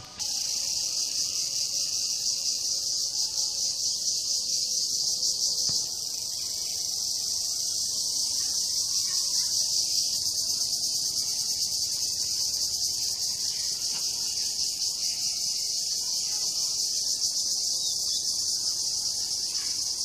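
Insects in the trees chirring in a steady, high-pitched chorus with a fast, even pulse, dipping slightly about six seconds in.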